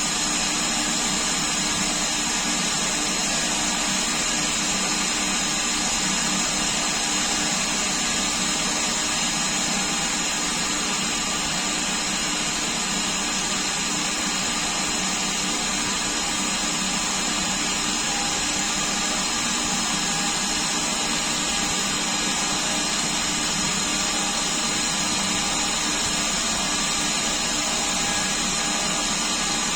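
Converted Coronet India lathe running steadily under CNC control, a constant motor drone with a high whine that does not change.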